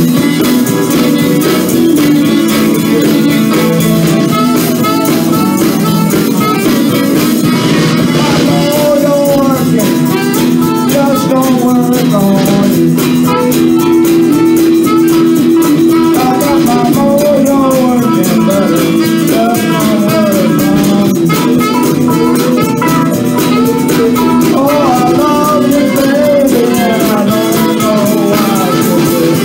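Live blues band playing an instrumental passage: electric guitars, bass guitar, saxophone and drums, with a melody line bending up and down over the steady band.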